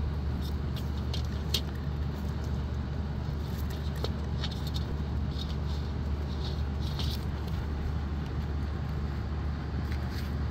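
Steady low background rumble with faint, scattered light clicks and rustles.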